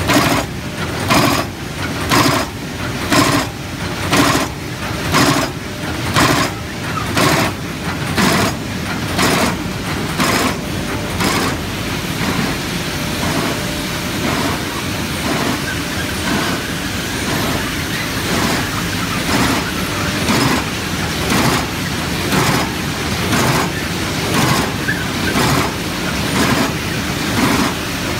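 Automatic carton folder gluer running, belts and rollers carrying corrugated carton blanks through, with sharp regular knocks about twice a second that give way about halfway through to a steadier mechanical run with softer pulses.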